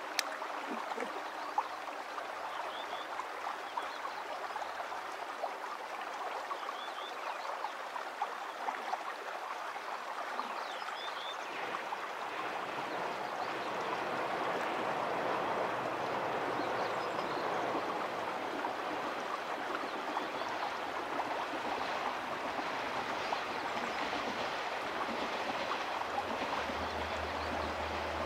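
Steady rush of flowing water, growing somewhat louder about halfway, with a few faint bird chirps early on. Near the end the low, steady drone of an approaching KiHa 47 diesel railcar's engine joins in.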